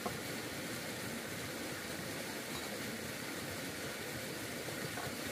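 Steady, even rushing noise, with a faint click at the very start.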